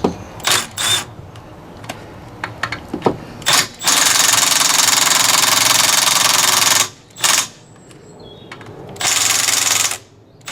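Milwaukee M12 brushless 90-degree impact wrench on its lowest setting, hammering on a car wheel nut done up to about 110 Nm. First come a few short blips, then a run of about three seconds, then a shorter run of about a second near the end.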